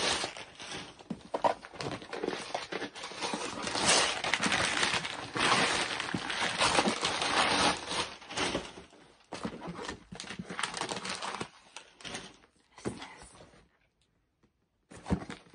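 Paper gift wrapping and packaging being torn, crinkled and pulled off a box by hand, with small knocks as the box is handled; the rustling stops suddenly a couple of seconds before the end.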